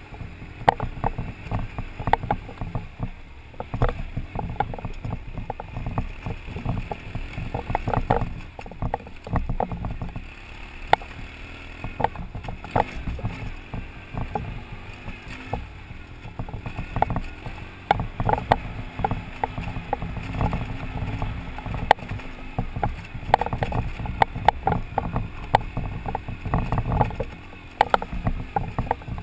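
Adventure motorcycle engine running as it climbs a rough dirt trail. Frequent sharp knocks and rattles come from the bike jolting over rocks and ruts.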